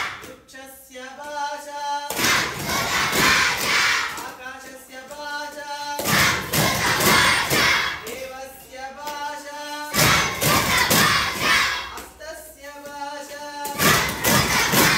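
Call-and-response Sanskrit children's song. A single voice sings a short line, then a roomful of children answers together loudly in a shouted chant, taking turns about every two seconds.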